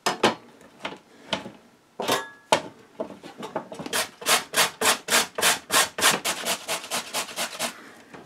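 Butternut squash being grated on a metal box grater: a fast, even run of scraping strokes, about four or five a second, starting about three seconds in. A few separate knocks come before the grating starts.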